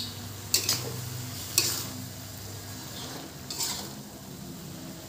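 Spatula scraping and tossing napa cabbage in a stone-coated wok during stir-frying, three sharp scrapes spaced a second or two apart over a light sizzle.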